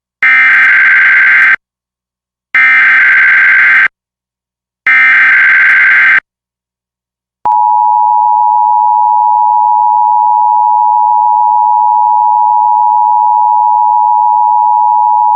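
Emergency Alert System SAME header: three identical bursts of digital data tones, each about a second and a half long with a second's gap between them, followed about seven and a half seconds in by the steady EAS attention signal, the two-tone alert tone that opens an alert or required monthly test.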